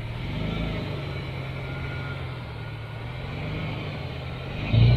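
Toyota FJ Cruiser's 4.0-litre V6 engine running at low revs as it crawls up an articulated hill climb, with a louder surge near the end.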